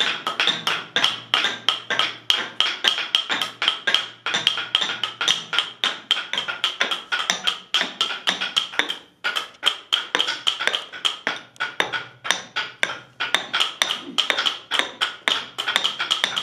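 Rapid wooden tapping, about four or five knocks a second: a small wooden block striking a frame full of paper sky-shot firework tubes to pack earth into them. There is a short pause about nine seconds in.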